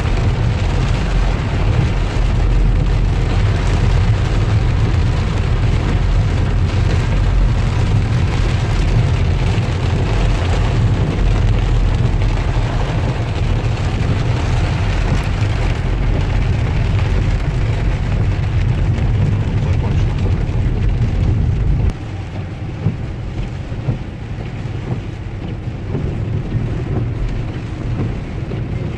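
Downpour rain beating on a car, over a deep steady rumble that cuts off abruptly near the end, leaving the rain alone and quieter.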